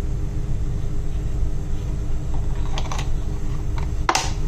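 Coconut oil poured into a hot nonstick pan. A few light crackling ticks come in the second half and one sharper click about four seconds in, over a steady low rumble and hum.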